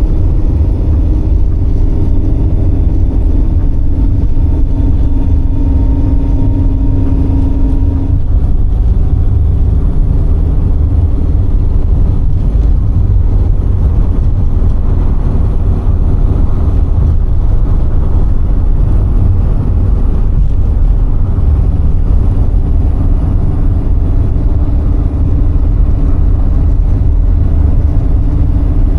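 A car driving downhill: a steady low rumble of engine and road noise. A steady engine tone drops away about eight seconds in.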